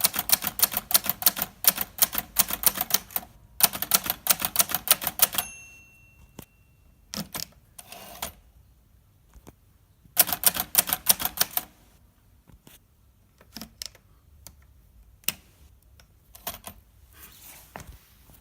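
Hermes 3000 portable typewriter being typed on in fast runs of key strikes. About five and a half seconds in, the typing stops and a short ringing tone fades out. Scattered clicks follow, then another run of typing about ten seconds in, and a few more single clicks.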